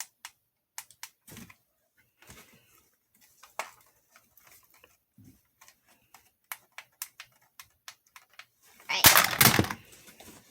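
Plastic clicks and taps of a toy gun being handled, with a loud, noisy burst lasting under a second about nine seconds in.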